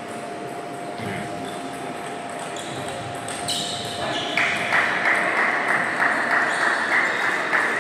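Table tennis ball ticking off the bats and the table during a point in a large hall. About halfway through, a louder, dense rushing noise sets in and carries on.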